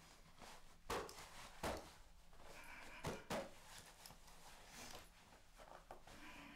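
Clothing rustling as a police uniform and vest are put on and adjusted, with four short handling bursts in the first three and a half seconds and softer rustles after. The room is otherwise quiet.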